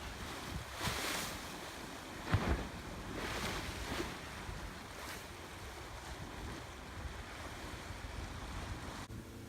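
Small lake waves washing against the shore, several swells in the first half, with wind buffeting the microphone. The sound breaks off abruptly near the end.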